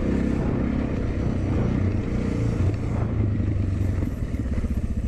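Suzuki DR650's single-cylinder engine running as the bike rides along a gravel track. About four seconds in it settles into a slower, even thumping as the throttle eases off.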